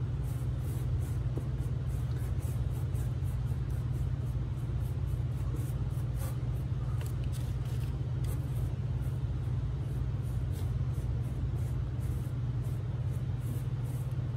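Paintbrush strokes swishing over a wooden board as acrylic paint is spread along the grain, a few strokes a second, over a steady low hum.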